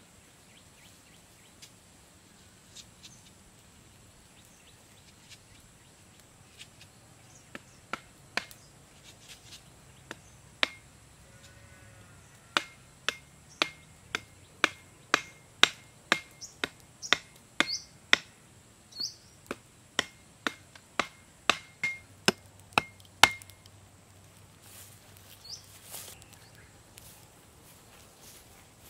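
Wood being struck hard over and over: a few scattered knocks at first, then a steady run of sharp knocks at about two a second for some ten seconds before they stop. A few short bird chirps come between them.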